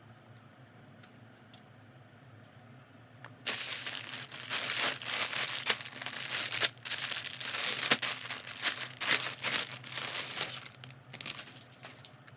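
Plastic packaging crinkling as it is handled and pulled open by hand. It starts suddenly about three seconds in, runs on with many sharp crackles and fades out near the end.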